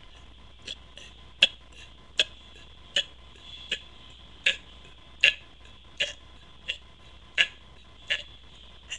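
A person's throat making a series of sharp gulping clicks, about one every three-quarters of a second and uneven in loudness: air being swallowed to work up a burp without soda.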